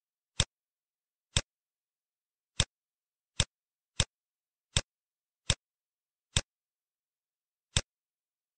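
Computer mouse clicking, nine sharp single clicks at uneven intervals of about a second, as answers and buttons in an on-screen quiz are clicked.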